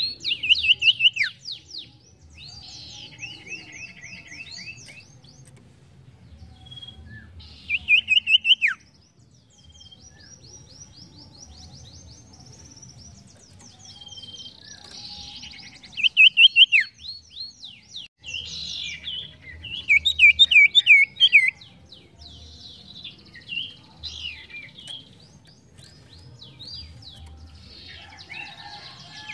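Caged sirtu songbird in full song, singing high, rapid trilled phrases of quick falling notes in repeated bursts, with the loudest phrases near the start, about a quarter of the way in, just past halfway and about two-thirds through.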